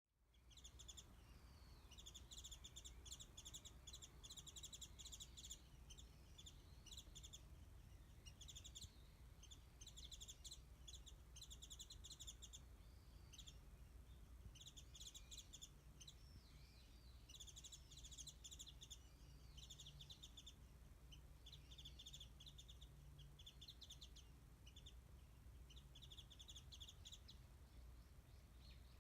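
Japanese white-eye singing: runs of fast, high twittering notes repeated again and again with short pauses between them, faint over a steady low hum.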